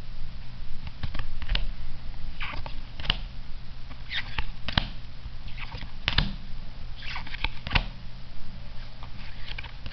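Weiss Schwarz trading cards from a freshly opened booster pack being flipped through one at a time in the hands, each card slid from the front of the stack to the back: a run of irregular short snaps and swishes, about one or two a second.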